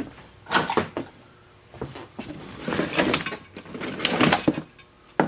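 Handling noise as parts are unpacked: a sharp click, then several short spells of knocking and scraping.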